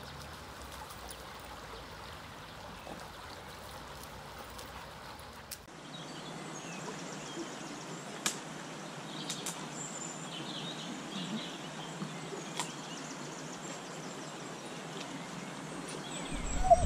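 Steady rush of a shallow stream running over stones, then, after a cut, a quieter woodland background with small birds calling and a few faint clicks.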